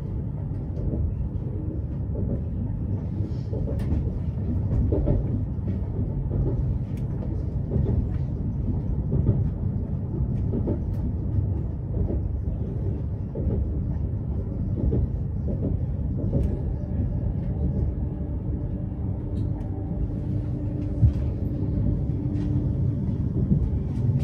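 Inside a moving ES2G Lastochka electric train: a steady low rumble of wheels on rails, with scattered light clicks and knocks. A faint steady hum joins about three-quarters of the way through.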